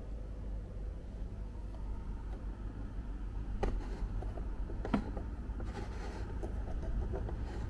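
Steady low rumble of room or handling noise, with a few sharp plastic clicks, the loudest about five seconds in, as the rotary adjustment knob on a STIHL RLA 240 battery scarifier is turned by hand.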